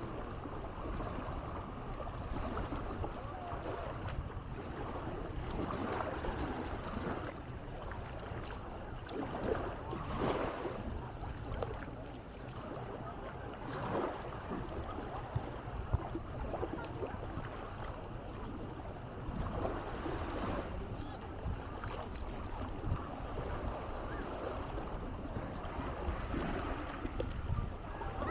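Small waves washing onto a sandy beach every few seconds over a steady low rumble of wind on the microphone, with people's voices in the background.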